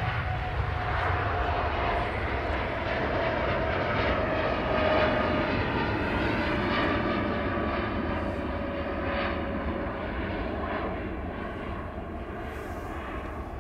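Boeing 787-9 Dreamliner's twin jet engines at take-off thrust as the airliner lifts off and climbs away: a heavy rumble with a whining tone that slowly falls in pitch, loudest about five seconds in, then fading.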